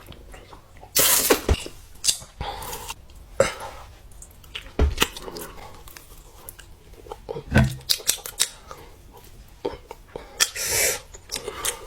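Close-miked eating sounds: scattered crisp clicks and short crunching bursts of food being bitten and chewed, with a few breathy rushes.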